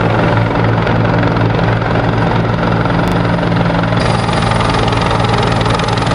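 Helicopter running steadily, a loud rotor and turbine drone.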